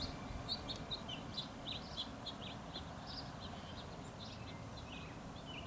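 Birds chirping faintly in the background: a string of short, high chirps, irregularly spaced, over a low steady rumble.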